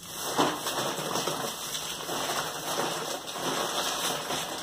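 Thin plastic shopping bag rustling and crinkling steadily as hands rummage through it and pull out packets.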